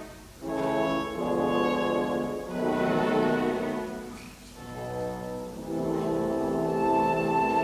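Background orchestral music: slow sustained phrases with brass, French horn prominent, swelling and fading.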